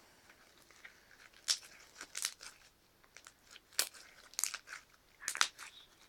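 Homemade slime made with Monami glue being stretched and pulled open by hand, giving off crisp crackling pops and clicks at irregular intervals, a few loud ones standing out.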